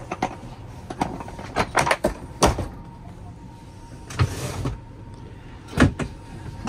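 Clunks and knocks of a sleeper-train seat being converted into a berth, several sharp knocks with the loudest about two and a half and six seconds in, over the carriage's steady low running rumble.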